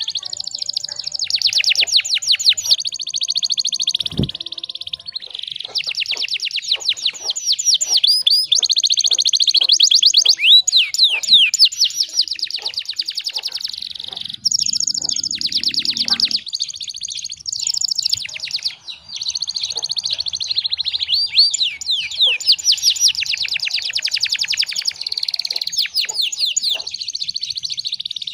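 Domestic canary singing a long, unbroken song of fast trills and rolls, switching from one trill pattern to the next every second or two. A short low thump comes about four seconds in.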